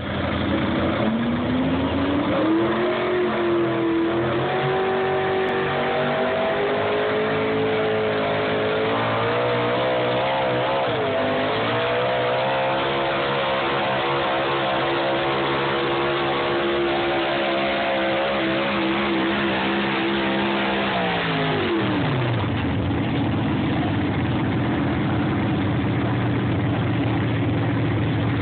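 Pickup truck engine under heavy load pulling a weight-transfer sled, its pitch climbing over the first several seconds and then held high with a wavering note. About 21 seconds in the engine pitch drops steeply as the pull ends, leaving a lower, steady engine drone.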